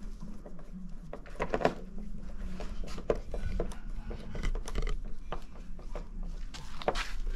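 Clicks and light knocks of hands handling a black metal-and-glass outdoor wall lantern while fitting it back onto its wall bracket, the sharpest knocks about one and a half, three and seven seconds in, over a steady low hum.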